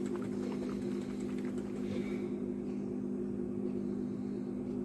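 A steady low hum, with faint rattling clicks in the first second and a half as a small bottle of model paint is shaken by hand.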